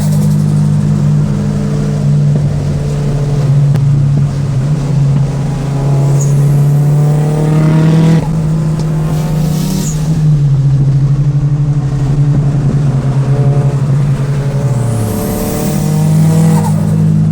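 Turbocharged SR20DET four-cylinder of a Nissan Silvia S14a idling and revved up a few times, with the turbo fluttering as the throttle snaps shut.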